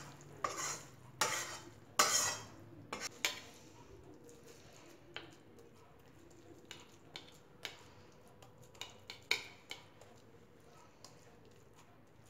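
Spatula scraping a thick, sticky jaggery-and-ghee wheat dough (sukhdi) out of a steel pan onto a steel plate. There are several loud scrapes and knocks against the metal in the first three seconds, then lighter, sparser scrapes and taps as the mixture is pressed and spread flat on the plate.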